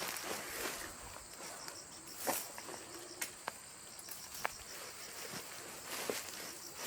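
Insects chirping in a steady, high, pulsing trill, with a few short rustles and clicks scattered through it.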